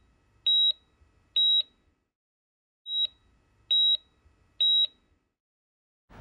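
Heart-monitor-style electronic beeps used as a sound effect: short, high-pitched, evenly pitched tones about one a second, five in all, with a pause of about a second and a half after the second.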